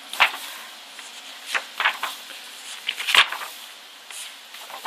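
Large photo-book pages being turned by hand: a few short paper swishes and rustles, the loudest about three seconds in.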